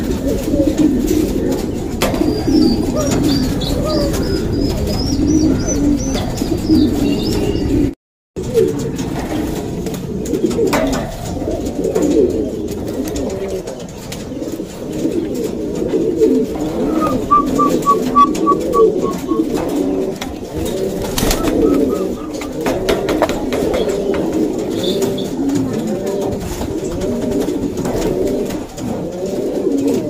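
Several domestic pigeons cooing, their low rolling coos overlapping without a break, apart from a brief gap about eight seconds in.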